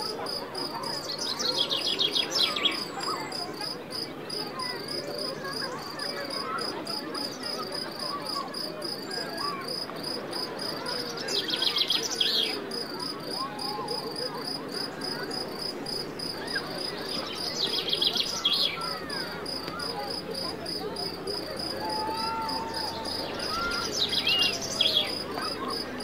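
Crickets chirping in a steady, pulsing high drone, with a bird singing a short descending phrase four times, about every six seconds.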